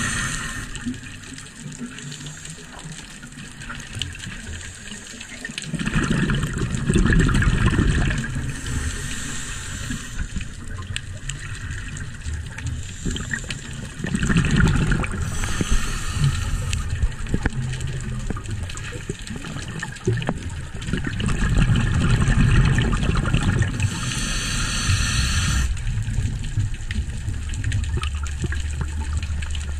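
Scuba diver breathing through a regulator, heard underwater: a hissing inhale every several seconds, each breath followed by a low, rumbling gurgle of exhaled bubbles, over a few breath cycles.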